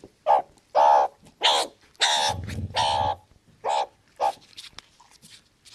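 Short, harsh animal calls, about eight in quick succession, fading out after about four seconds.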